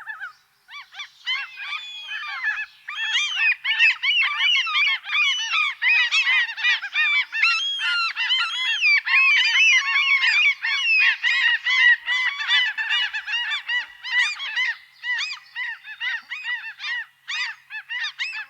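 A flock of gulls calling, many calls overlapping at once; a few calls at first, a dense chorus from about a second in, thinning out near the end.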